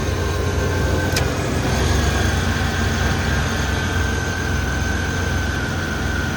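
1994 Chevrolet S10 Blazer's 4.3 L V6 running steadily, freshly started after an upper intake rebuild. A steady high-pitched whine sits over the engine, and there is a single sharp click about a second in.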